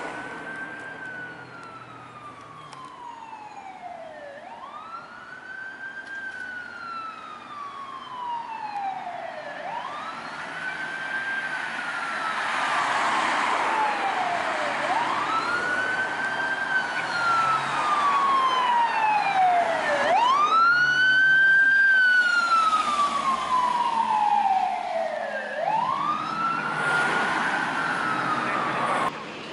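LAFD fire engine E226's siren wailing, each cycle sweeping up quickly and falling slowly, about one every five seconds. It grows louder as the engine approaches and passes, then cuts off suddenly near the end.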